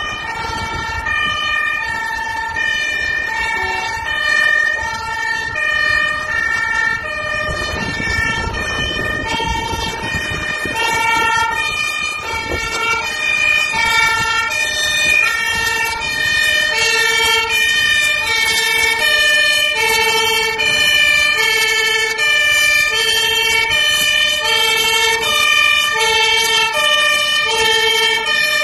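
Fire engine's two-tone siren, a high and a low note taking turns, each about half a second long. It grows louder in the second half as the MAN fire truck approaches.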